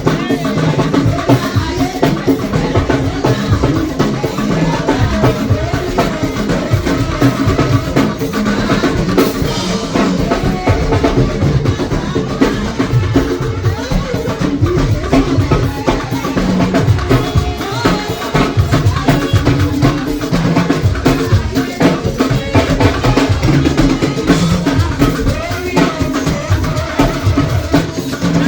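Music with drums: a drum kit keeps a steady, busy beat under pitched instruments or voices, without a break.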